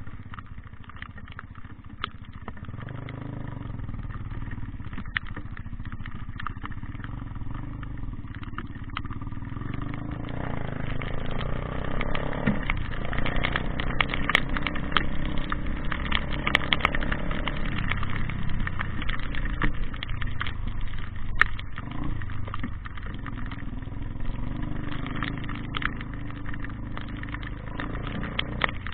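A motor vehicle engine running, with scattered clicks and knocks; it grows louder about a third of the way in and eases off again later.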